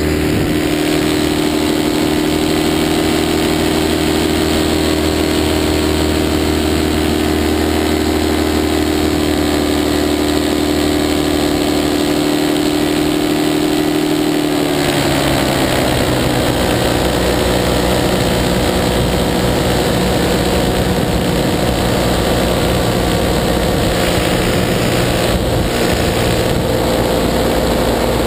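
Paramotor engine and propeller running steadily in flight. About halfway through, the engine note shifts and settles at a new steady pitch as the engine speed changes.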